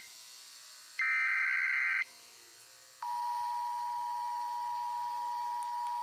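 Emergency alert digital data burst: about a second of rapid two-pitch buzzing data tones, typical of an EAS end-of-message code. About a second after it stops, a steady single-pitch tone comes on and holds.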